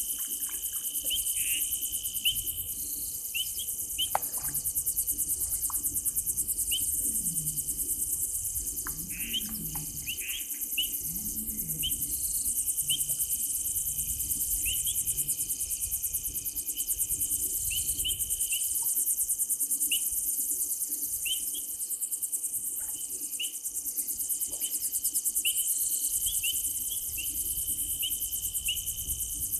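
Night chorus of crickets: a steady, high-pitched, finely pulsing trill, with many short high chirps scattered throughout.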